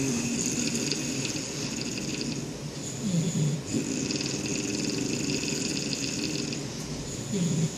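Snoring in slow, even breath cycles, a new breath about every four seconds, each long fluttering stretch ending in a short falling note.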